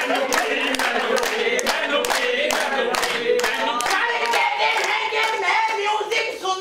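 A group of men singing an improvised qawwali together, with steady rhythmic hand clapping keeping time.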